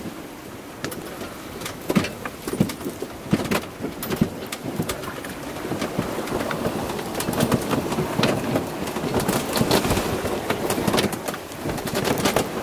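Wind buffeting the microphone and water rushing and splashing along a small sailboat's hull as it beats into a breeze and whitecapped waves, with irregular knocks and gusts that grow louder in the second half.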